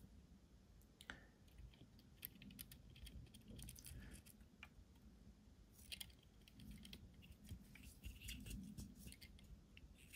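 Near silence with faint, scattered small clicks and ticks of metal tweezers handling a tiny railing section and setting it onto a plastic model deck, a few clustered about six seconds in.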